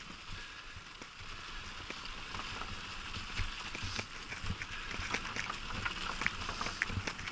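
Bicycle rolling over wooden bridge planks and a leaf-strewn wooden boardwalk: a steady rolling hiss and rumble with sharp clicks and rattles that come thicker in the second half.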